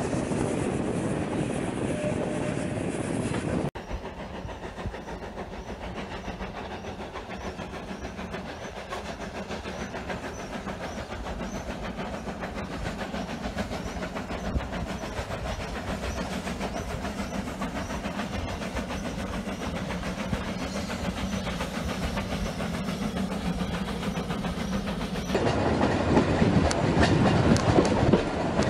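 Steam train on a mountain railway: running noise heard from aboard an open-windowed carriage, then after about four seconds the quieter, steady sound of the steam locomotive and its carriages working along the hillside heard from beside the line. Near the end it switches back to the louder clatter of the carriage wheels on the track from aboard.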